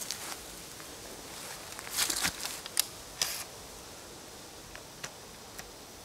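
RIA Carina 12-gauge shotgun being handled and loaded: a cluster of short clicks and rustles about two seconds in, then a sharper click and a brief rustle.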